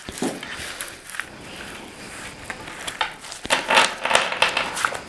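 Tarot cards being handled and shuffled: a run of soft clicks and papery rustles that grows busier in the second half.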